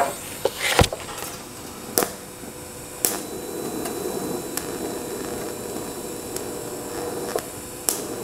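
A few sharp clicks, then about three seconds in a TIG welding arc strikes and runs as a steady hiss with a buzz, welding a seam in thin sheet metal.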